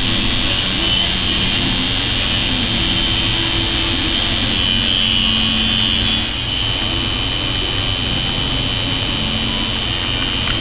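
Coil tattoo machine buzzing steadily as it inks skin. The buzz drops slightly in level about six seconds in.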